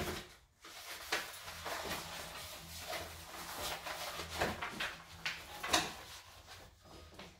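Adhesive contact paper on a kitchen countertop being rubbed and scraped down by hand and with a small utensil to press it flat so it sticks: irregular scuffing and rustling strokes, the loudest about three-quarters of the way in.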